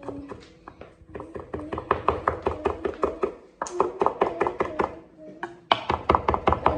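Kitchen knife chopping rapidly on a cutting board, about five strokes a second, with a brief pause near the end before the chopping resumes louder.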